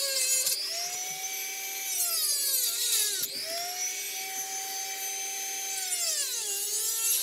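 Dremel rotary tool with a diamond-tip cutter cutting into a plastic blaster shell. Its high whine sags in pitch as the cutter bites into the plastic and climbs back as it frees up: near the start, about three seconds in, and again near the end, over a steady hum.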